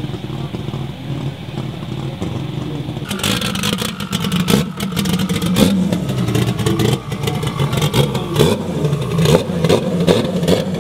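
Big-turbo six-cylinder drag truck engine idling, then about three seconds in a louder stretch of revving, with many sharp cracks and pops and quick rising blips of the throttle near the end.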